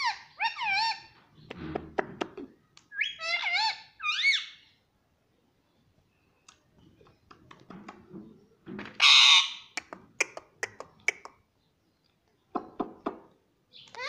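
Indian ringneck parakeet calling in short, high, wavering notes during the first half, then a loud harsh squawk about nine seconds in, followed by a few sharp clicks.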